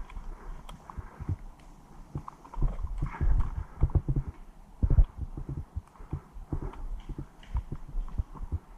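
Footsteps: irregular low thuds, a few a second, busiest about three seconds in, with a few light knocks.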